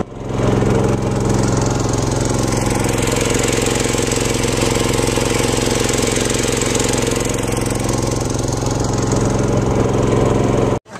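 Small single-cylinder petrol engine driving a river boat, running steadily under load with an even, loud drone and a strong low hum. It cuts off suddenly near the end.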